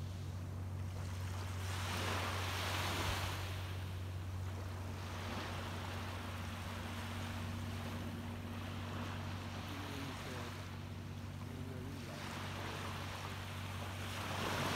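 Small waves washing up and drawing back on a sandy beach. The wash swells about two seconds in and again near the end. A steady low hum runs underneath.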